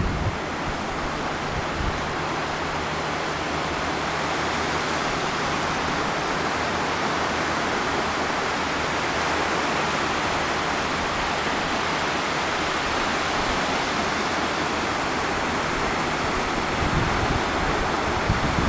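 Surf: small waves breaking and washing up the shore in a steady, even hiss, with some wind rumble on the microphone near the end.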